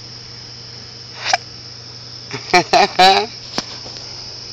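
Crickets chirring steadily, with a low steady hum underneath. A short voice sound comes about a second in, and a cluster of brief voice sounds near the middle.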